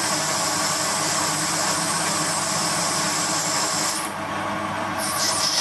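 CQ9325 bench lathe running with a cutting tool turning brass: a steady machine hum under a high, hissing cut. About four seconds in the cutting hiss drops away, returns briefly and stops again as the cut ends.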